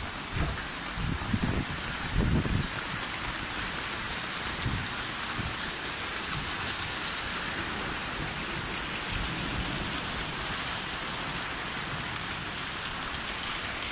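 Heavy rain falling in a steady, even hiss, with water gushing out of a drainpipe and splashing onto the ground. There are a few low thumps in the first couple of seconds.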